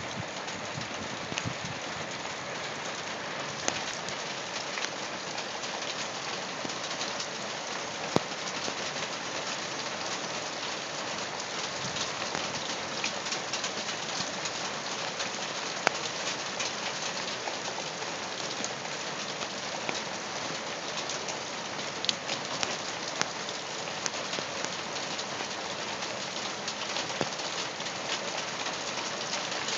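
Torrential rain pouring onto loose gravel stones: a dense, steady hiss with scattered sharper drop hits now and then.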